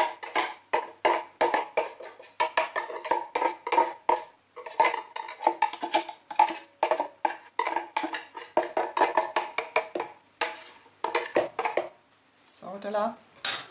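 Quick, irregular knocks and taps of a blender jar being shaken and tapped over a plastic mixing bowl to get the thick wild-garlic and egg purée out, with short pauses between runs of knocks.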